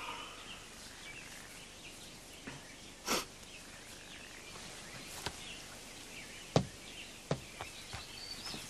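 Quiet garden ambience with faint bird chirps and a handful of sharp, unevenly spaced knocks.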